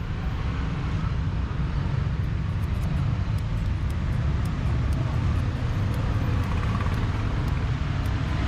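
Steady rumble of street traffic, with faint light ticks scattered through it.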